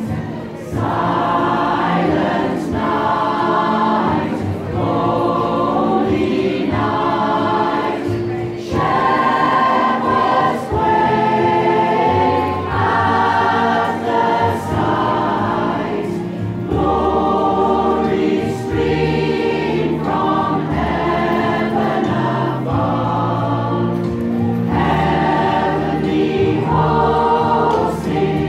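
Mixed choir of men and women singing a Christmas carol together, in sustained sung phrases.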